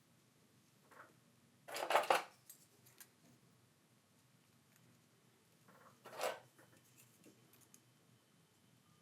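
Spring clamps being squeezed open and clipped onto a phone's edges to hold a newly glued screen in its frame: two short rasping clatters, the first about two seconds in and louder, the second about four seconds later.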